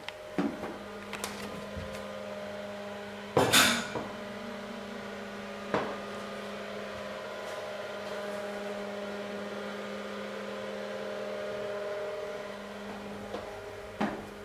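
A steady electrical hum, like a small motor, that starts just after a click and stops near the end. A few sharp knocks and one loud rustling burst about three and a half seconds in sit on top of it.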